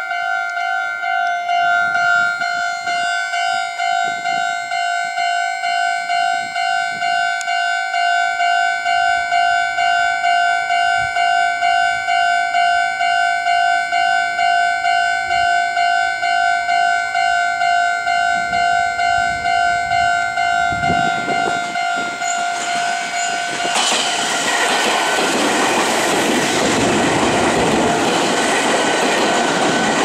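Japanese level-crossing warning bell ringing in a steady, evenly pulsing two-tone clang. Near the end a Meitetsu electric train rumbles up and passes over the crossing, its wheel and running noise drowning out the bell.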